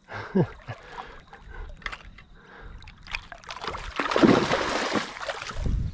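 Water splashing and sloshing around a kayak as a small hooked Murray cod is fought, with a louder burst of splashing about four seconds in and scattered clicks and knocks.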